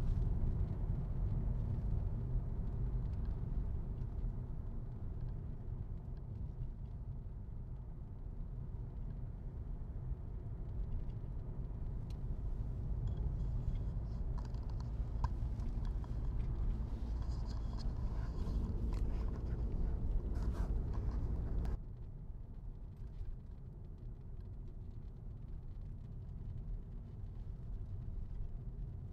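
Car driving, heard from inside the cabin: a steady low rumble of engine and tyres on the road. About three-quarters of the way through it suddenly becomes quieter and duller, and a softer rumble carries on.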